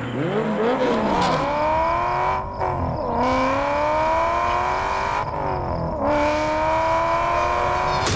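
Car engine revving, its pitch swinging quickly up and down at first, then accelerating through the gears: the note climbs steadily, breaks and drops at an upshift about two and a half seconds in and again about five seconds in, then climbs again.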